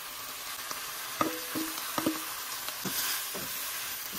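Vegetables sizzling in a hot oiled wok as fried tofu puffs and bean sprouts go in and are stir-fried. A few light knocks against the wok come around the middle.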